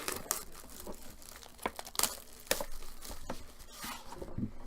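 A sealed trading-card box being opened by hand: wrapping crinkling and tearing, in a string of sharp irregular crackles and snaps.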